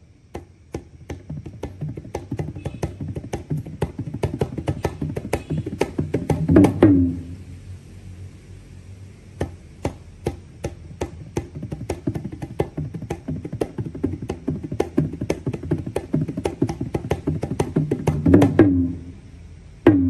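Balinese gamelan bebarongan ensemble playing a fast, densely struck passage. It opens with one sharp stroke and builds to a loud climax about six and a half seconds in. It then drops back softer and builds again to a second loud climax near the end.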